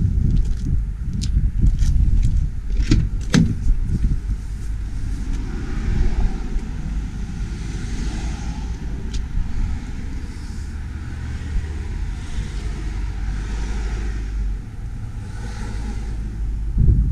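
Vauxhall Vivaro van's driver door being opened and the cab entered: light clicks, then two sharp knocks about three seconds in, over a steady low rumble.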